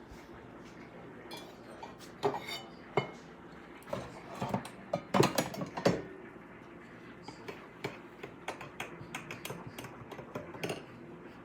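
Dishes and utensils clinking and knocking on a counter: a run of sharp knocks with the loudest cluster in the middle, then lighter, quicker clicks.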